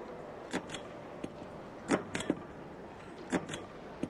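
Short, sharp clacks and knocks from a ticket clerk's hands working at her desk, in groups of two or three about every second and a half, over a faint steady background hum.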